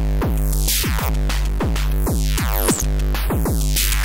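Akai Tom Cat drum machine beat processed through a Schlappi Engineering Angle Grinder Eurorack module, distorted and split into super stereo: low-pass filtered in the left channel, high-pass filtered in the right. A fast, steady pattern of hits, each with a falling pitch sweep, over a constant deep bass tone.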